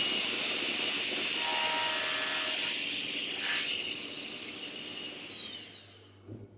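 Table saw with a 250 mm, 72-tooth crosscut blade cutting across an oak parquet board: a steady high whine from the spinning blade with the hiss of the cut over a low motor hum. About two-thirds of the way in, the whine fades and sinks in pitch.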